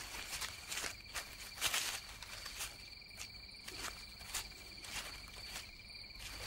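Night insects, crickets by their sound, trilling steadily at a high constant pitch, with scattered scratching and rustling from a koala's claws on eucalyptus bark and leaf litter.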